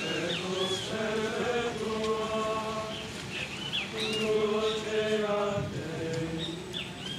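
Clergy in procession chanting in unison: two long phrases of slow, held notes, with short high chirps repeating over them.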